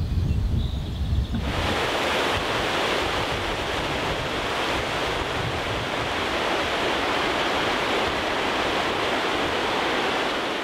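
Wind rumbling on the microphone for about a second and a half, then a steady rush of river rapids breaking over rocks.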